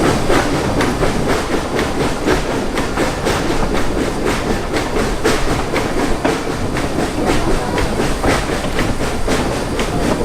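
Rumble and dense, irregular clatter of a narrow-gauge passenger train's wheels and couplings rolling over the rails.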